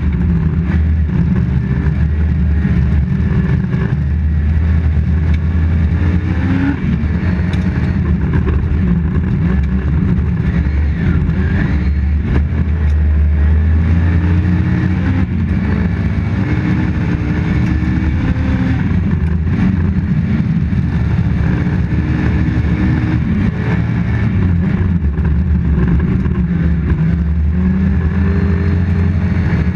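Toyota Corolla GT rally car's engine heard from inside the cabin, running hard under load and rising and falling in pitch as the car is driven flat out, with steady tyre and road noise underneath.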